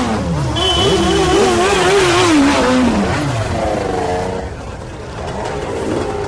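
Motorcycle engine revving: the pitch climbs, holds high with a slight wobble for about two seconds, then falls away as the revs drop. Near the end it settles into a quieter, steadier running sound.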